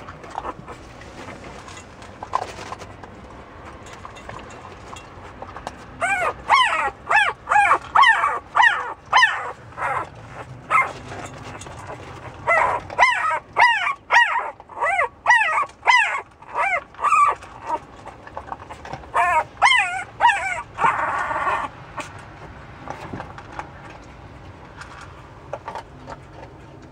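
A very young puppy crying in short high yelps, each rising and falling in pitch, about two a second, in three runs starting about six seconds in.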